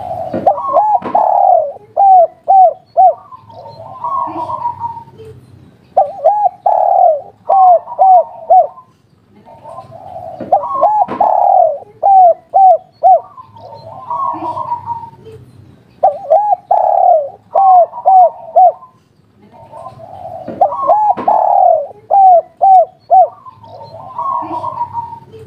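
Spotted dove (derkuku/tekukur) of the kuk-3 song type cooing its song over and over, five or six phrases. Each phrase is a burry coo followed by a quick run of short arching notes, and they repeat about every four to five seconds.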